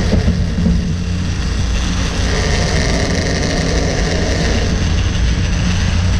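Fishing boat's engine running steadily and evenly.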